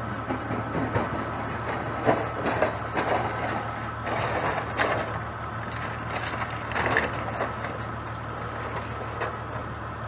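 A steady low engine hum under a series of irregular knocks and cracks, like material splintering or being crushed, with the sharpest cracks about two, five and seven seconds in.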